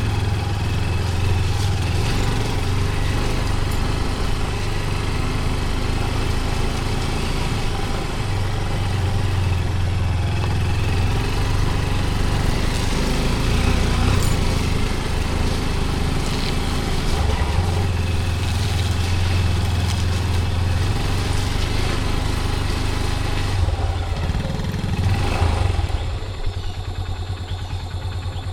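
Small motorcycle engine running steadily while riding, growing quieter near the end as it eases off.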